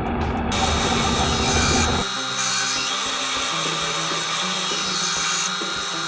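Power tool cutting wood: a steady high hiss over a motor hum. The sound changes abruptly twice, gaining its high hiss about half a second in and losing its low rumble about two seconds in.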